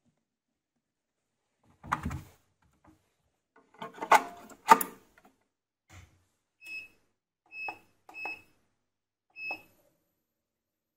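Handling knocks and clicks as the power cable's plug connectors are pushed together, followed by four short electronic beeps at one pitch from the Record Power Coronet Herald lathe's digital control panel as it is switched on and its display lights up.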